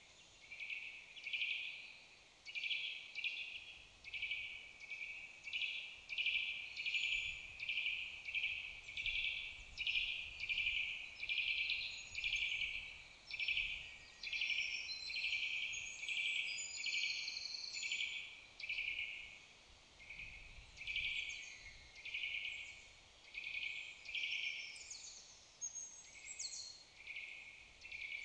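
Woodland songbirds singing: a steady series of short repeated chirps, a little over one a second. From about ten seconds in, higher, varied notes from other birds join them.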